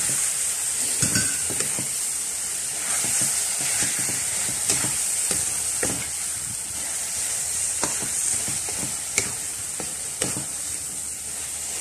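Taro stems sizzling in oil and fried spice paste in a metal wok, stirred with a wooden spatula that scrapes and knocks against the wok now and then.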